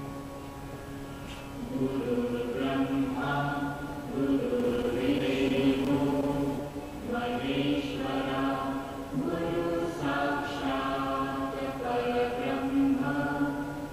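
Background music of voices chanting a mantra over a steady low drone, in sung phrases a couple of seconds long.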